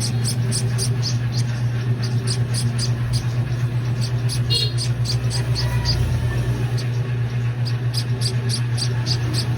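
Baby bird cheeping over and over in short, high chirps, about three a second, with a pause a little past halfway, over a steady low hum.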